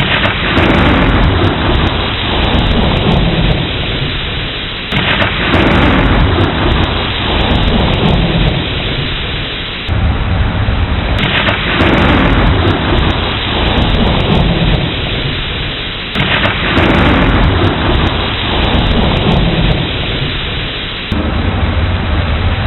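Heavy rain falling steadily, with thunder rolling about every five seconds. Each roll starts suddenly and dies away into the rain.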